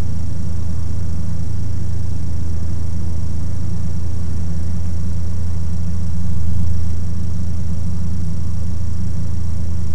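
Ikarus C42 microlight's engine and propeller droning steadily in cruise flight, heard in the cockpit as a low hum. The drone swells slightly about six seconds in.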